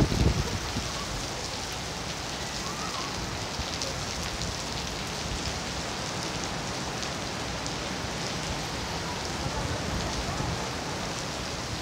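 Heavy rain pouring steadily on trees and paving in strong wind. Near the start, wind buffets the microphone with a low rumble.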